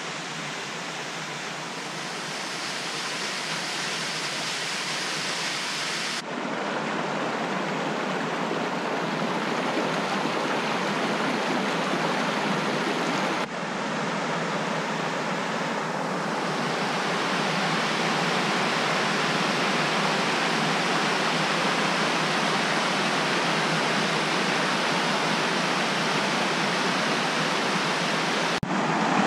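Creek water rushing over rocky cascades and small falls, a steady rushing noise that grows louder overall and shifts abruptly three times as the scene cuts from one stretch of water to the next.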